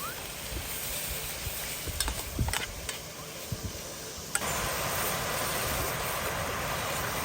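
Camp cooking: food sizzling in a pan with a few clinks of a utensil, then, about four seconds in, a louder steady hiss starts abruptly.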